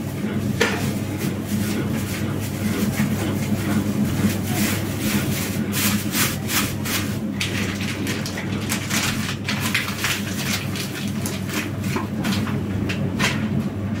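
Plastic bag crinkling and rustling in irregular bursts as it is pulled off a block of cheese by hand, over a steady low hum.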